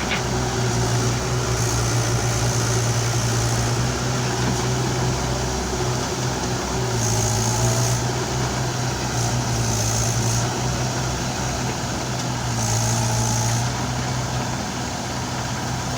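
Heavy diesel engine running steadily, a low drone that shifts slightly in pitch a few times.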